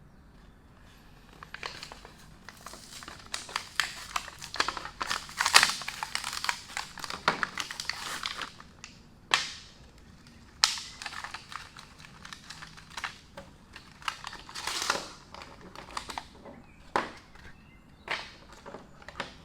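A tubeless tyre repair kit's packaging being opened by hand: crinkling and rustling with many small clicks for several seconds, then scattered sharper clicks and short rustles as the contents are handled.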